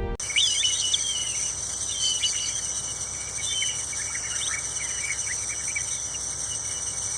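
Steady high-pitched insect drone, with small birds chirping over it during the first few seconds.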